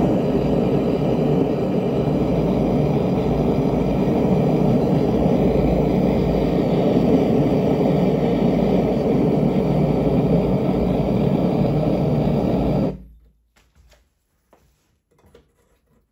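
Homemade 1/2-inch Frosty T propane venturi burner firing into a small forge, a steady deep rush of burning gas. Near the end it cuts off suddenly as the gas is shut off, leaving a few faint handling sounds.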